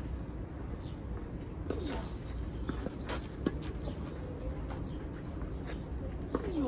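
Tennis racket hits on the ball during a rally, with one sharp hit, louder than the rest, about three and a half seconds in and a few fainter knocks around it. Birds chirp in the background.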